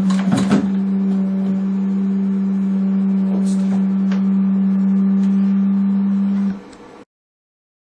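Steady low electrical hum with a few faint overtones from the motor-driven pan-tilt tracking camera units, with a couple of faint clicks near the start; the hum cuts off abruptly about six and a half seconds in.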